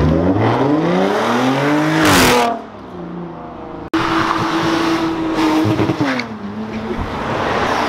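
A car engine accelerating hard, its note rising for about two seconds before it lets off. Then, after an abrupt break, another car's engine holds a steady note and drops in pitch as the car drives past.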